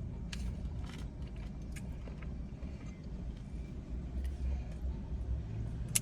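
A steady low rumble with a few sharp clicks and taps, typical of food containers and utensils being handled.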